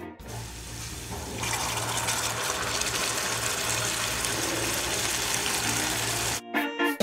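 Beef broth and cooked beef slices poured from a pressure cooker pot into a hot stir-fry pan, a steady splashing, pouring hiss that grows louder about a second and a half in. Guitar music comes back near the end.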